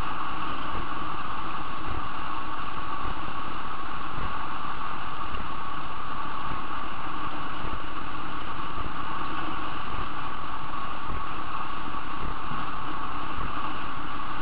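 Steady rush of wind and water at the bow of a racing trimaran under sail, with irregular low buffeting of wind on the microphone.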